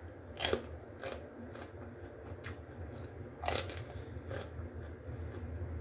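A person biting and chewing food close to the microphone, with short crunches, the two loudest about half a second and three and a half seconds in.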